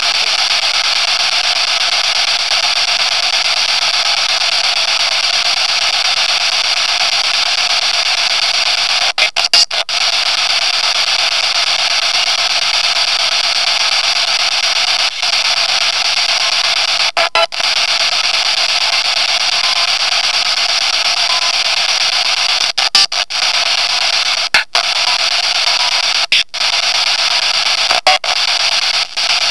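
Steady loud hiss of static, cut several times by brief sudden dropouts, with faint short tones in places: noise played during a spirit-communication session, in which a message is read from it.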